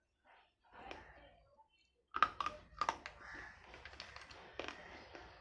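Dry slate pencil being bitten and crunched, a run of sharp, clicky crunches starting about two seconds in after a nearly silent start.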